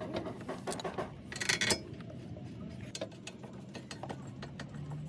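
Metal hand tools clicking and clinking in a string of short ticks, with a brief rasping burst about a second and a half in.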